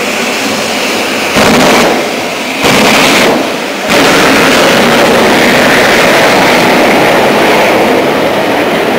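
Jet engine of a jet-powered quad bike running, with two short full-power blasts about one and a half and three seconds in, then a sustained full-power blast from about four seconds in as the quad accelerates away down the track.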